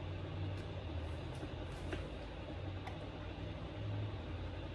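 Motor oil glugging from a quart bottle through a funnel into a car engine's oil filler, with soft uneven low gurgles over a steady background hum.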